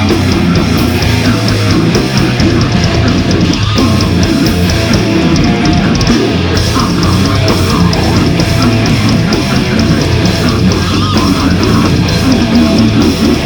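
Loud death metal played by a band, with distorted electric guitars and drum kit, dense and unbroken, cutting off abruptly at the end.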